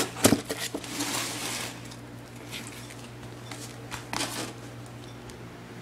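Rustling and knocking handling noises in short bursts, the loudest about a quarter second in, a longer rustle around a second in, and another near four seconds, over a steady low hum.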